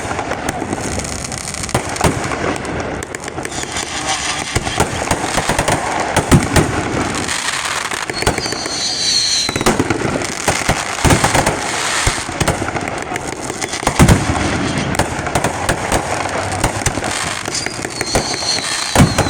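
Fireworks going off in a steady run of bangs and crackling, with a high whistling streak about eight seconds in and again near the end.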